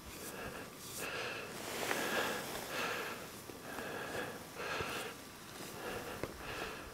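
A person breathing hard close to the microphone: quick, even breaths, about one every two-thirds of a second.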